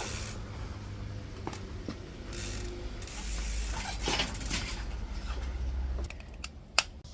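A bicycle being handled: scattered mechanical clicks and short rattles over a low steady hum, with one sharp, loud click near the end.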